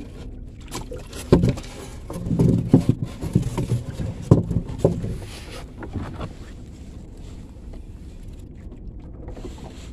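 Irregular knocks and thumps against the wooden hull of a small fishing boat, bunched in the first half, then a steady low background.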